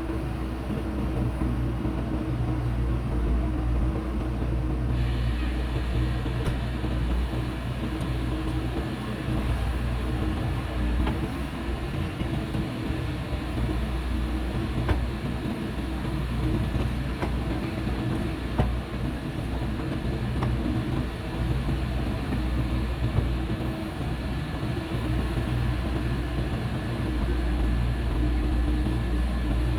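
Heavy machinery's diesel engine running steadily under work, with a higher steady whine joining in about five seconds in and a couple of short knocks later on.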